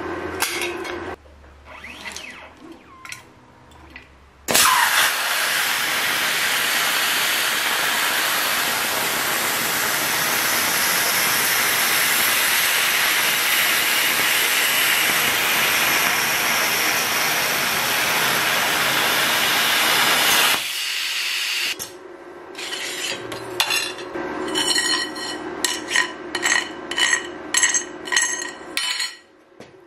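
An air plasma torch on a CNC table cutting a shape out of steel plate. A loud, steady hiss starts abruptly about four seconds in and cuts off about sixteen seconds later. A string of short, irregular noises follows.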